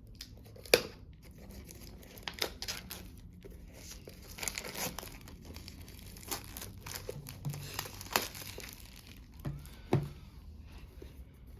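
Plastic and cardboard cube packaging crinkling and rustling as it is handled and pulled open, with several sharp clicks and taps.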